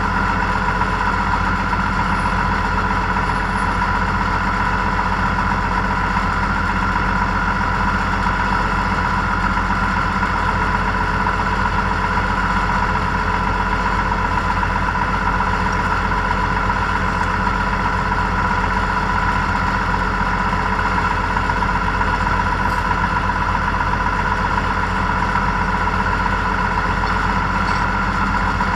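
Tractor engine idling steadily at an even speed.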